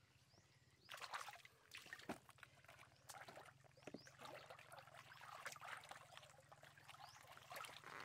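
Hands splashing and sloshing in shallow muddy water, groping through the mud for fish, starting about a second in with irregular splashes.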